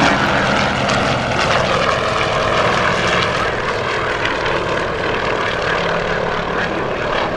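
Westland Lysander's single radial engine and propeller running steadily in flight, a loud, continuous drone.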